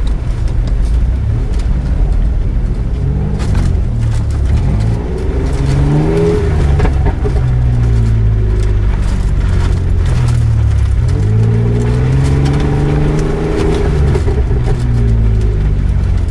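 An off-road 4x4's engine is heard from inside the cabin, revving up and down as it is driven, its pitch climbing about three seconds in and again about eleven seconds in. Scattered knocks and rattles sound over it.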